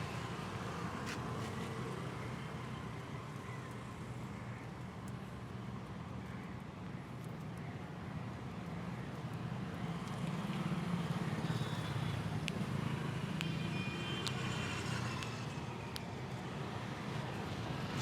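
Steady street traffic noise from passing vehicles, with a few faint sharp clicks and a brief high-pitched tone about three quarters of the way through.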